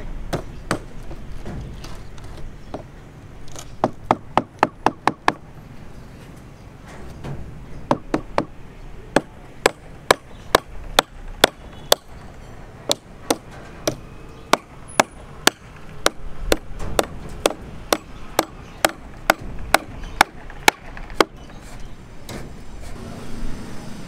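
Hand hammer striking repeatedly: a quick run of about half a dozen blows around four seconds in, then steady blows about two a second, stopping a few seconds before the end.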